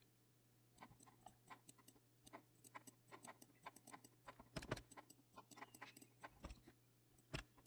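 Faint, irregular clicking of a computer mouse, a couple of dozen clicks spread through, with two slightly louder ones about two-thirds of the way in and near the end, over a faint low hum.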